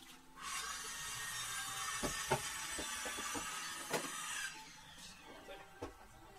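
A distant power saw cutting wood, running steadily and then winding down with a falling whine about four and a half seconds in. A few light knocks and clicks come from the plastic front bumper being worked loose.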